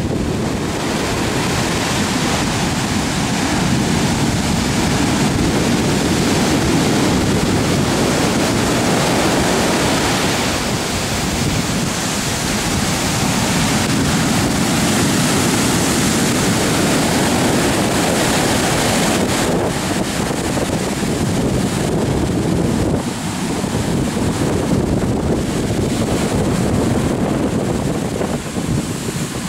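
Heavy storm surf breaking on a beach and over granite boulders: a loud, continuous wash of crashing waves, with wind buffeting the microphone.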